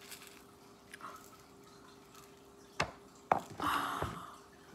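Sprinkles being shaken from a small shaker onto frosted sugar cookies. About three seconds in come two sharp knocks of the shaker, then a short rush as sprinkles pour out at once.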